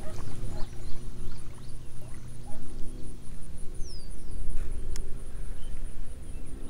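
Wind buffeting the microphone with a steady low rumble, under the faint whir of a cheap baitcasting reel being cranked to retrieve a lure. The whir starts and stops as the handle is turned. A brief high falling chirp comes just before four seconds in.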